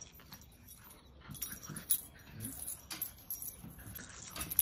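Two puppies play tug-of-war with a toy, making small whimpering and growling-type noises, with scattered sharp clicks and a brief knock near the end.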